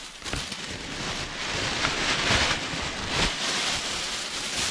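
Thin plastic packaging bag rustling and crinkling without a break as it is handled right against the microphone.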